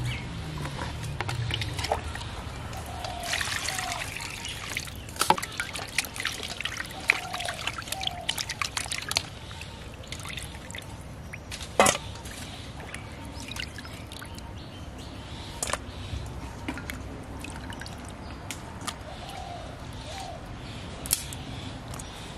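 Water sloshing and trickling in a stainless steel bowl as whole koi fish (climbing perch) are rinsed by hand and lifted out into another steel bowl. A run of small splashes and clicks comes in the first half, and there is a single sharp knock about halfway through.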